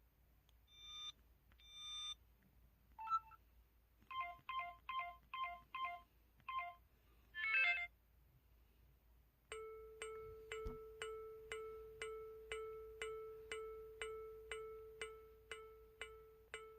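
MS600 mobile phone camera sound effects: a string of short electronic beeps and chimes. From about halfway in comes a steady electronic tone with regular ticks about twice a second, typical of a self-timer countdown; the ticks speed up near the end.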